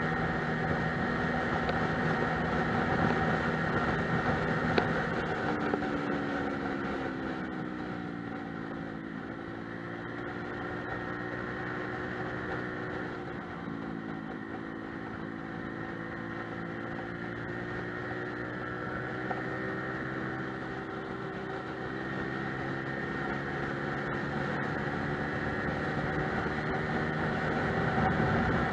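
Lexmoto Milano scooter's engine running on the move, heard over road and wind noise. The engine note drops a little about a quarter of the way in and then climbs slowly as the scooter picks up speed.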